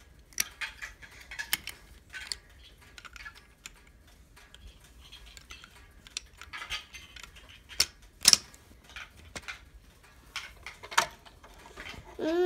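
Snap-together plastic toy front loader being handled: scattered light clicks and knocks of hard plastic parts, with two louder knocks about eight seconds in.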